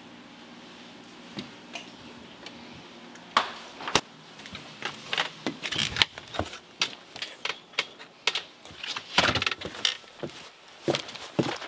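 After a few quiet seconds, a door is opened with a couple of sharp knocks of its latch and frame. Then comes an irregular run of footsteps and clothing rustle as someone steps out across a wooden deck.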